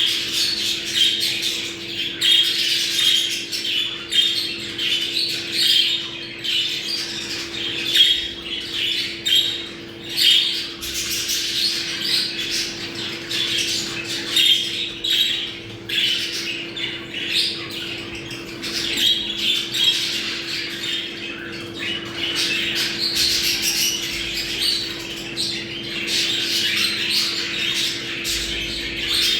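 Budgerigars chattering, squawking and warbling without a break, the busy mating chatter of a breeding flock, with a faint steady hum underneath.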